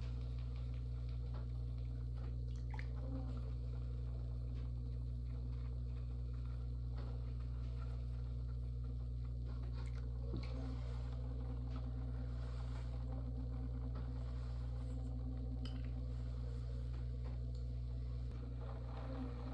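Electric pottery wheel motor humming steadily while it spins, with faint wet clicks and squishes from hands working the clay. The hum drops slightly near the end as the wheel slows.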